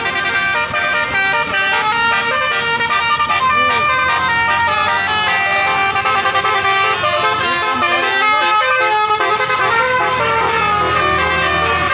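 Bus 'telolet basuri' horn playing a melody: several horn tones sounding together and changing pitch in steps, over the low steady hum of the bus engine.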